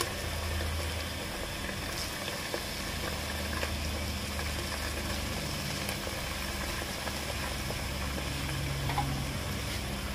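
Chunks of raw beef frying in hot oil with onions and spices in a wok: a steady sizzling hiss, with a low steady hum underneath.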